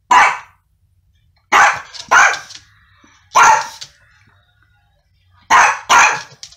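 Small affenpinscher–Yorkshire terrier mix dog barking sharply at a stranger outside: about six loud barks, some single and some in quick pairs, with pauses between them. This is territorial alert barking.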